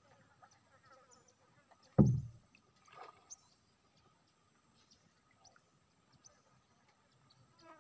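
A single loud, dull thump about two seconds in, then a softer knock about a second later, over a faint steady insect buzz.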